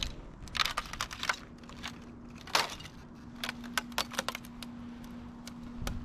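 A plastic bag tangled with dry twigs and leaves crinkling and crackling as it is poked and lifted with a stick, in an irregular run of sharp crackles, the loudest about two and a half seconds in. A faint steady low hum sits underneath.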